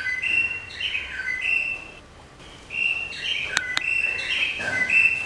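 A songbird singing: a run of short, clear whistled notes that step between a few fixed pitches, pausing about two seconds in and then going on. Two sharp clicks come a little past the middle.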